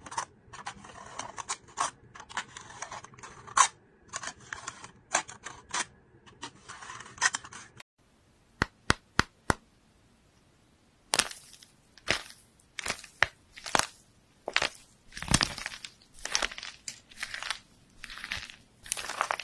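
A craft knife's blade scoring and cutting through aluminium foil stretched over a perforated shaker lid makes quick ticking, crinkling taps. After a short gap with a few sharp clicks, a foam squishy's hard outer coating cracks and crunches in a run of short bursts as it is squeezed and torn apart.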